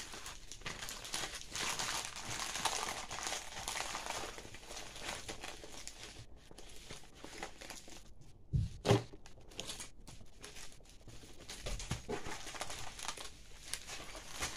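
Clear plastic packaging crinkling as it is handled and folded, with a couple of dull knocks a little past halfway, the loudest sounds.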